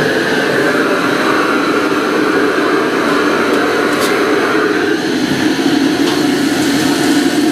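Gas wok burners of a Chinese wok range running with a steady, loud rushing roar. There is a single short metallic click about four seconds in.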